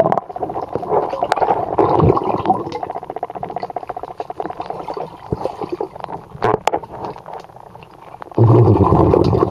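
Muffled underwater sound of a swimming pool as heard by a submerged camera microphone: a steady water rush and gurgling with scattered clicks. It turns much louder and deeper about a second before the end.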